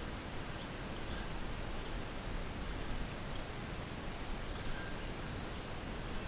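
Steady outdoor background noise, with a quick run of faint high chirps from a small bird about three and a half seconds in.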